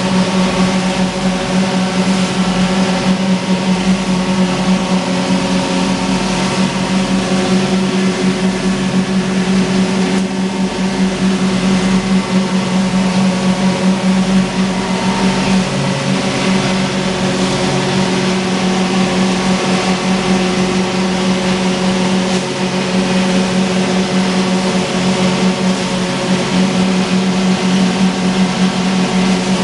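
Stainless steel chilli pulverizer plant running steadily: an electric-motor-driven grinding mill feeding a cyclone, giving a loud constant hum with several steady tones over a hiss.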